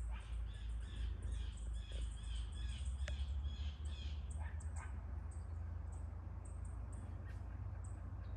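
Bird calls: a rapid run of short chirping notes for about four seconds, then scattered high chirps, over a steady low rumble.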